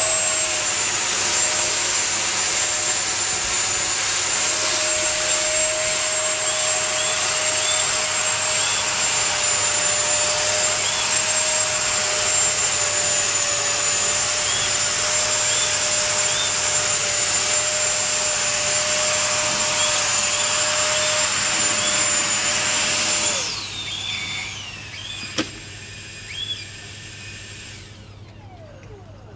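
Electric ducted fan of a model rocket running steadily at hover: a loud rushing whine with a high steady tone. About 23 seconds in the power is cut and the whine falls away as the fan spins down, followed by a single sharp knock.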